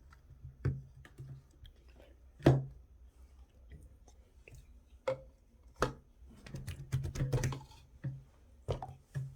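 Irregular clicks and taps at close range, with a louder knock about two and a half seconds in and a busier cluster of taps near the end, over a faint low hum.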